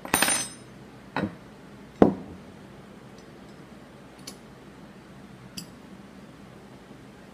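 Small metal torch parts and hand tools clinking and knocking on a workbench: a short clatter at the start, another knock about a second in, and a sharper, louder strike at two seconds, then two faint ticks later on.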